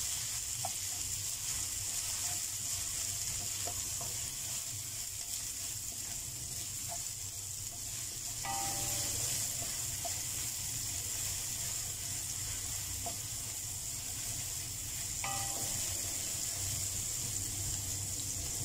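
Diced onion sizzling in hot oil in a wok, a steady hiss, while a wooden spatula stirs it around the pan.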